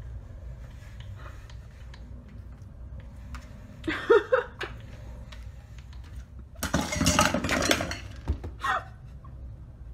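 A cat pawing and scrabbling at a glass window pane from outside, the glass rattling and clinking, loudest from about seven to eight seconds in.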